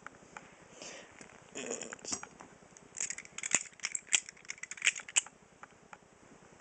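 Metal clicks and clinks of balisong butterfly knives being handled, their handles and latches knocking together. A few scattered clicks early on, then a quick run of sharp clinks from about three seconds in to just past five.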